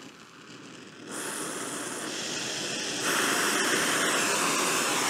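Oxyacetylene torch flame hissing as the oxygen is added, preheating an aluminium plate for welding. The hiss steps up about a second in and again, louder, about three seconds in, then holds steady.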